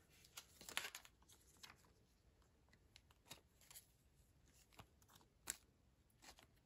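Faint, scattered rustles and ticks of trading cards being handled on a wooden table, against near silence.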